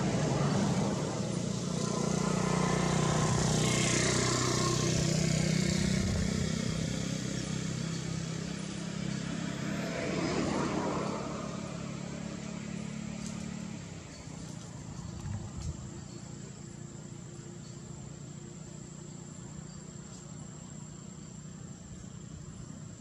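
A motor vehicle engine running nearby, swelling as vehicles pass, with the engine sound dying away about two-thirds of the way in. A quieter outdoor background with a faint steady high-pitched tone follows.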